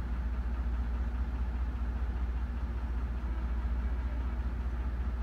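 Diesel locomotive engine idling: a steady low rumble with a constant hum that does not change.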